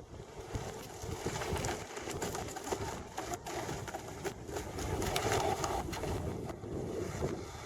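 Wind buffeting the microphone: an uneven low rumble that swells and dips.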